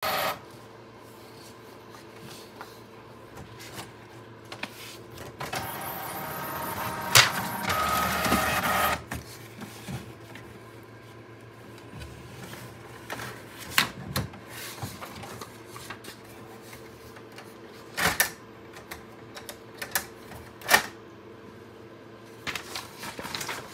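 Inkjet printer at work: a motor whirs for about three and a half seconds a quarter of the way in, and the mechanism clicks and clacks sharply a few times, over a steady low hum.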